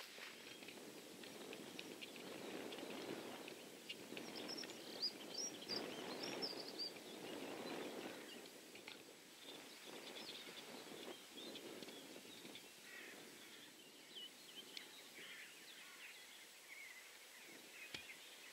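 Faint outdoor ambience: a soft steady rush of background noise with birds chirping now and then, most busily a few seconds in.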